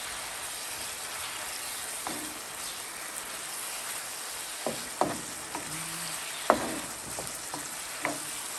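Chicken, peppers and peas sizzling in a sauce in a nonstick frying pan and being stirred with a spatula. A steady sizzle runs throughout, with a few sharp knocks of the spatula against the pan, the loudest about six and a half seconds in.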